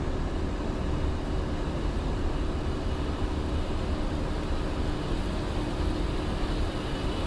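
Steady flight-deck noise of an Airbus A350-900 in the climb: an even rush of air with a low hum and a few faint steady tones underneath.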